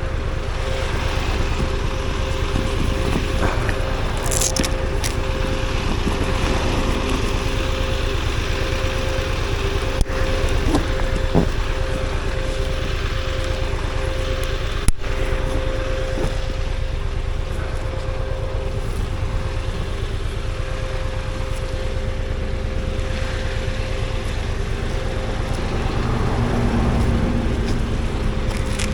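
Motorcycle engine running steadily, with a couple of sharp clicks partway through.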